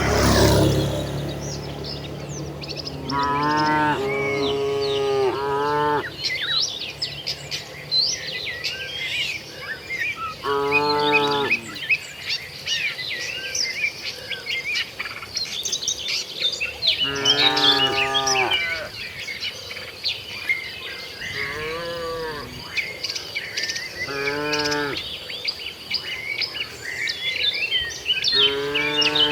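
Domestic cattle mooing, about eight separate moos spread over the stretch, some close together and others several seconds apart. Small birds chirp constantly in the background.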